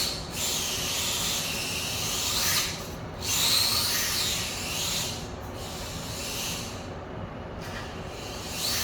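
Wltoys K989 1/28 RC car's small brushed electric motor and gears whining, the pitch rising and falling with the throttle, over a rubbing scrub of tyres sliding on the floor as it drifts. The whine drops away briefly a few times, longest near the end.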